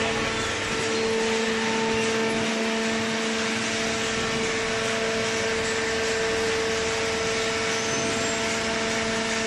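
Hydraulic cardboard baler running: its motor and hydraulic pump give a steady hum over a constant rushing noise, with no change in pitch or level.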